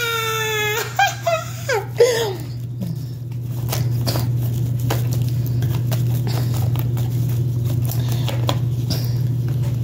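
Tarot cards being shuffled by hand: a run of quick, soft papery clicks and slaps of card on card over a steady low hum. A few sung notes are heard in the first couple of seconds.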